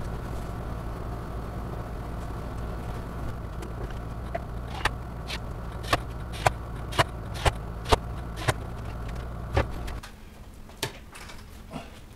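Steady low workshop hum, with a run of sharp clicks and knocks about two a second from around five seconds in, as a handheld tool works on a wooden picture frame. Just before ten seconds the hum stops and the sound drops to a much quieter room.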